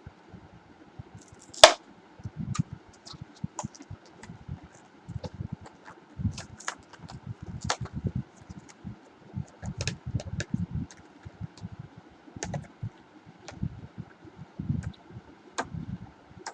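Headphone packaging being handled: irregular clicks, taps and soft knocks, with one sharp click about two seconds in.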